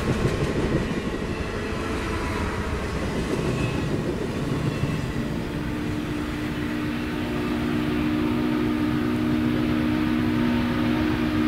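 Passenger cars of a steam excursion train rolling past on the rails with a steady rumble; about five seconds in, the steam whistle of Norfolk & Western J-class 4-8-4 No. 611 sounds one long, steady chord that holds to the end.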